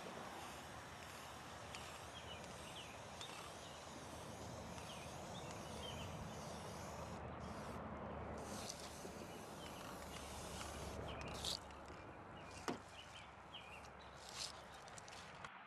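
Outdoor background noise with faint, scattered bird chirps, and a few sharp clicks near the end.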